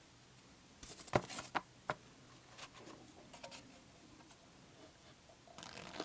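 Quiet handling noises: a cluster of sharp clicks and knocks about a second in, lighter ticks after, and more near the end, as a sponge is set into a shallow plastic tub. The vacuum motor is not running.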